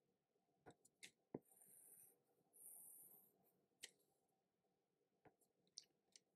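Very faint stylus taps and two short scratchy strokes of a stylus across a tablet screen as a box is drawn around an equation, over near-silent room tone.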